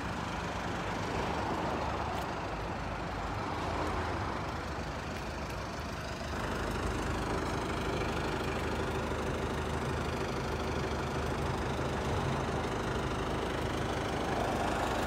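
1995 Mazda Bongo Friendee's turbo-diesel engine idling steadily, a little louder from about six seconds in.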